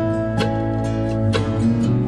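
Background music led by acoustic guitar, with a strum about once a second over held notes.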